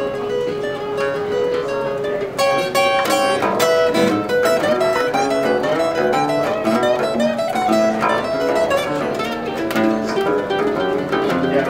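Acoustic guitar and acoustic bass guitar playing an instrumental break in a song. Held notes at first, then from about two seconds in a fast run of picked notes.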